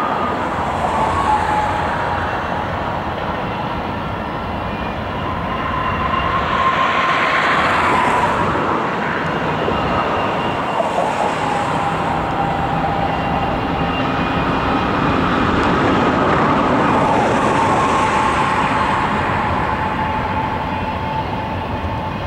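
Freight train of trailer-on-flatcar and double-stack container cars rolling past, a steady rumble of wheels on rail that swells and eases twice. High, thin wheel-squeal tones come and go over the rumble.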